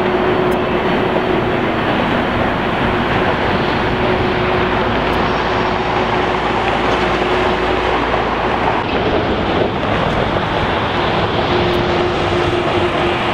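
Airliner jet engines running: a steady, loud rushing noise with a faint constant hum. The sound changes character about nine seconds in.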